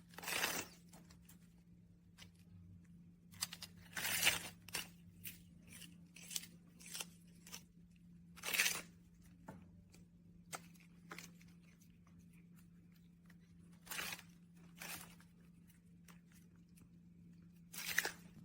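Granular cat litter being scratched and scraped in irregular, scratchy, crunching strokes, over a steady low hum.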